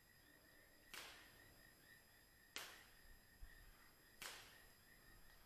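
Faint water dripping at an even pace: a short splash about every second and a half, three times.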